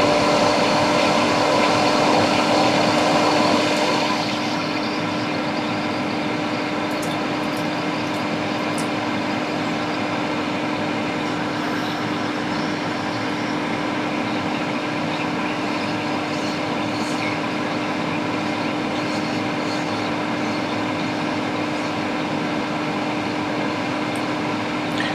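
Solder fume extractor fan running with a steady hum and airy rush, drawing flux fumes off the board; it gets a little quieter about four seconds in.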